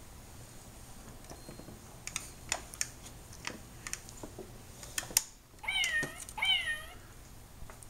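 A plastic baby-jumper globe toy being clicked and tapped by a finger, a series of sharp clicks, followed by two short, high, squeaky calls in quick succession.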